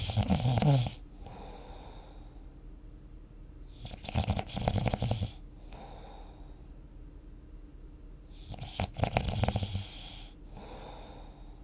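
Snoring in sleep: three loud, rattling snores about four seconds apart, each followed by a softer breath.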